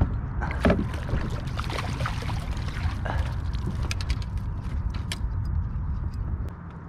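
Splashing and clatter of a landing net being worked through the water beside a kayak as a hooked fish is netted, with scattered sharp knocks and clicks of gear against the hull. A splash stands out about a second in, and a low rumble under it all drops away near the end.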